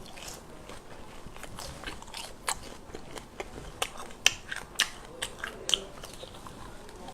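A person chewing and biting pork belly close to the microphone, with many short, sharp mouth clicks and smacks; the loudest come a little past four seconds in and again near five seconds.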